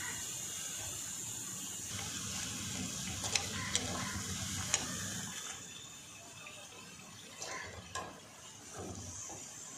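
Chicken pakoda deep-frying in hot oil in a kadai: a steady sizzle that quietens somewhat about halfway through. A few sharp clicks of metal tongs against the pan come between about three and five seconds in.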